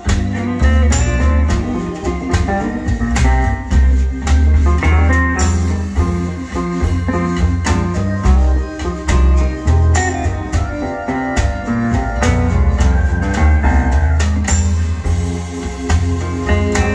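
Recorded music played back through a pair of SUPERMON bookshelf loudspeakers driven by a 75 W amplifier: an instrumental passage with guitar and drums over a heavy bass line.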